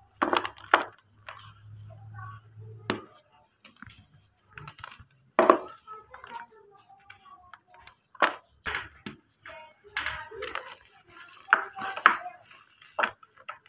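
Dry white cement crumbled and crushed by hand over a bucket of cement powder: irregular sharp crunches and crackles as pieces break and fall into the powder.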